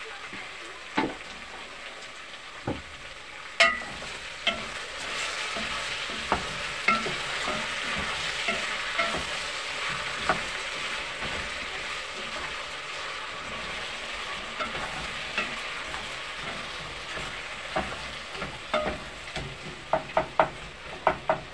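Beef stew of tomatoes, potatoes and beef sizzling in a stone-coated pot while a wooden spoon stirs it. The sizzle grows louder about four seconds in, and the spoon knocks against the pot now and then, more often near the end.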